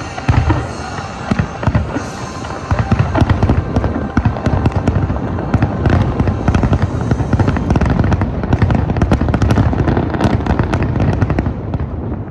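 Fireworks display: a dense barrage of shell bursts, with many sharp cracks and deep booms in quick succession. It is heaviest in the middle and thins out near the end, with the show's music playing underneath.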